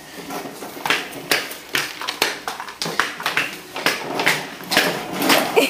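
Small plastic wheels rolling over floor tiles in irregular clicks and scrapes, from a toddler's ride-on toy car and a kick scooter.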